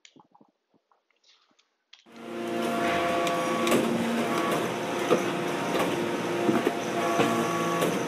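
A few faint rattles of copper granules, then about two seconds in a hydraulic metal-chip briquetting press starts running. It makes a loud, steady machine drone with several held tones that shift every couple of seconds, and scattered sharp clicks and knocks as it compacts copper granules into briquettes.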